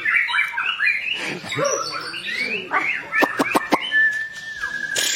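White-rumped shama (murai batu) singing a varied run of quick whistled glides, with a burst of sharp clicks about three seconds in and a long steady whistle near the end.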